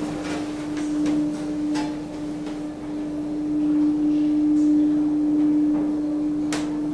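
Thyssen traction elevator car travelling between floors: a steady hum at one pitch, growing louder in the middle, with a sharp click near the end.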